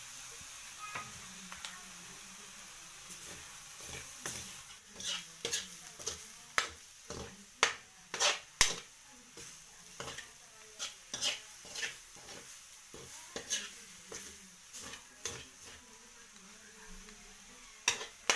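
Red ant eggs and beaten egg frying in a wok as they are stirred. A cooking utensil scrapes and knocks against the pan in irregular strokes, most often from about four seconds in, over a steady sizzle.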